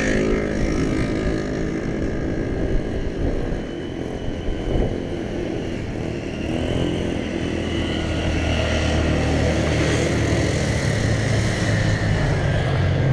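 Motor vehicle engines running along the road, a low engine drone that grows louder over the last few seconds as a vehicle comes close.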